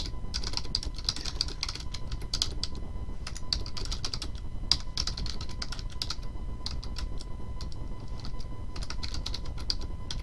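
Typing on a computer keyboard: runs of quick key clicks broken by short pauses, as a sentence is typed out.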